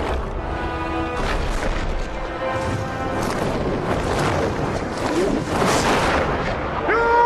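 Film sound-effect excerpt: the Balrog's roar, a deep grinding rumble made from concrete blocks dragged across a wooden floor and rock being pulverised, mixed with orchestral music. A loud shouted voice comes in near the end.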